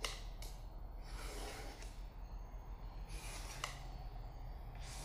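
Pen tracing along the inside edge of a frame onto mat board: faint scratching of the pen on the board, with a few light clicks.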